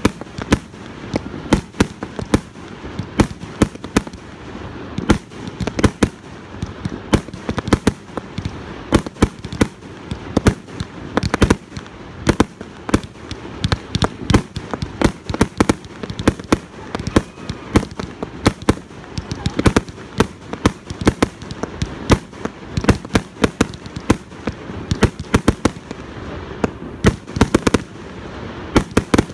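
Aerial fireworks going off in a rapid, continuous barrage: sharp bangs several times a second over a steady crackling haze.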